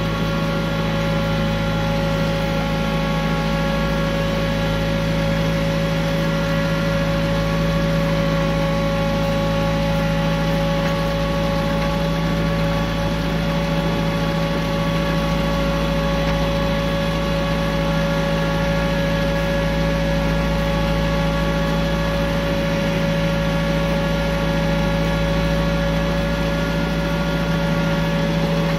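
Compact tractor engine running at a steady speed, an even hum with a constant whine over it and no change in pitch throughout.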